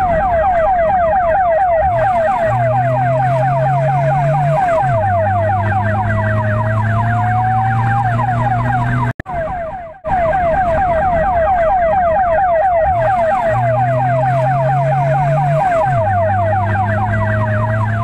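Indian ambulance's electronic siren sounding through a roof-mounted horn speaker: a rapid yelp of quick rising sweeps, about six a second, shifting briefly into a slower rising wail. It breaks off for a moment about nine seconds in and starts the yelp again.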